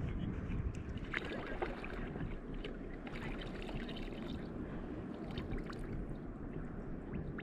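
Water lapping and sloshing against a kayak's hull, with scattered light clicks and knocks from handling a freshly caught kahawai and the landing net.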